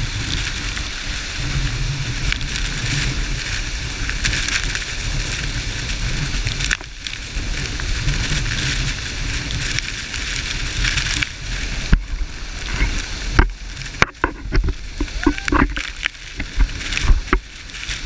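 Steady rush of a waterfall's falling water, with a low rumble beneath it. In the second half, a series of irregular knocks and bumps breaks in.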